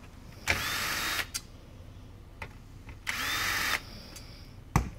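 Cordless drill backing out Phillips screws in two short bursts of under a second each, its motor giving a steady high whine, followed by a single sharp knock near the end.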